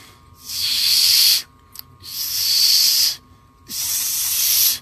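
A man forcing air hard through his tightly set teeth in three long hisses of about a second each. This is the tight, high-pressure airflow used for the train note on a Canada goose call.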